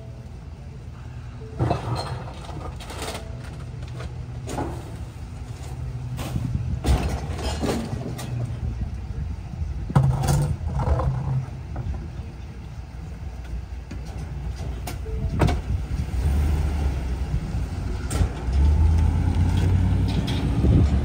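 Small Ford pickup-chassis garbage truck running at idle while a trash cart is tipped into its rear hopper, with a series of sharp knocks and bangs from the cart and hopper. From about three-quarters of the way in, the engine grows louder as the truck pulls away.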